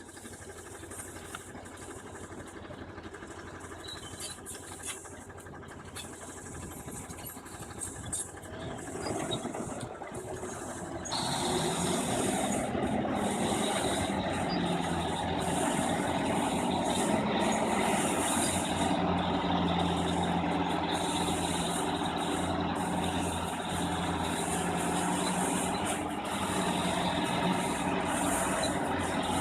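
Heavy diesel machinery engine running steadily, quieter at first and then much louder from about eleven seconds in.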